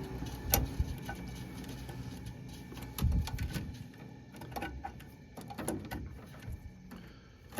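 Scattered clicks and knocks of a wiring connector being handled and unplugged from a gas furnace's control board, with a heavier knock about three seconds in. Underneath, the low hum of the switched-off furnace fades out about halfway through.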